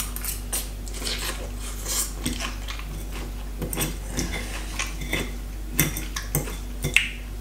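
Metal fork clicking and scraping against a ceramic salad bowl as salad is picked up, with chewing of a mouthful of salad. The clicks come irregularly, several of them, with a cluster in the second half.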